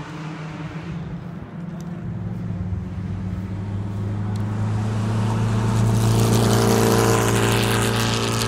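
A vintage race car's engine approaching along the circuit, holding a steady note that grows louder from about two seconds in and is loudest near the end.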